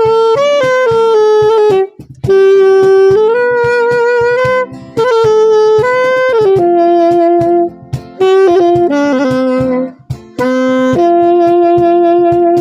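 Saxophone playing a slow melody of long held notes in short phrases, over a steady backing beat.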